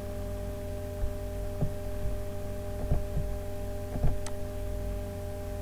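Steady electrical hum with several fixed tones and a low rumble. A few faint low knocks and one sharper click come a little past four seconds.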